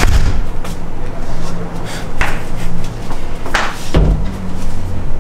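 Background music with a low bass line, cut across by a few sharp knocks, the loudest about four seconds in.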